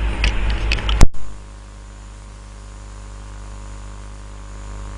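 A few clicks and a sharp loud click about a second in, then a steady electrical hum with hiss, ending in a short loud click.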